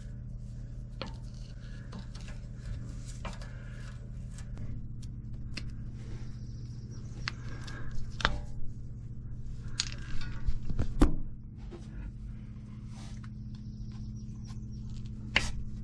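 Hand work with tools and metal parts: scattered scrapes and clicks, with louder knocks around 8 s, 10 to 11 s and near the end, over a steady low hum.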